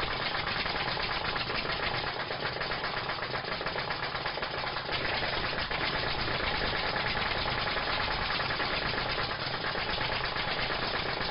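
A small engine running steadily with a fast, even knocking pulse.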